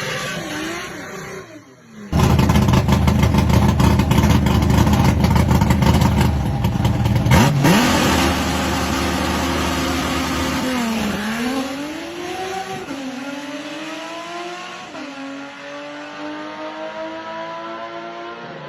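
A drag car's engine revs briefly, then about two seconds in it launches at full throttle, very loud and crackling for about five seconds. Then the engine note drops and climbs again several times as it shifts up through the gears, growing quieter as it pulls away.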